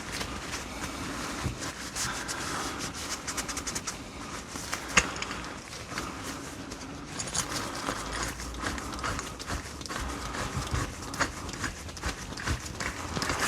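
Hand cleaning of a restored metal Record G-clamp: irregular small clicks, taps and rubbing as it is wiped and handled, with one sharper click about five seconds in.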